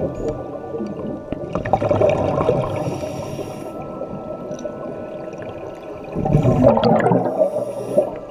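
Scuba diver's exhaled air bubbling out of the regulator underwater, with a louder burst of bubbles from about six to seven and a half seconds in.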